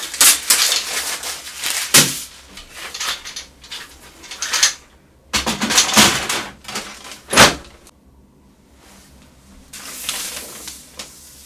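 A laser printer's plastic paper tray pulled out and pushed back in, with several sharp knocks, and packing material rustling as it is removed.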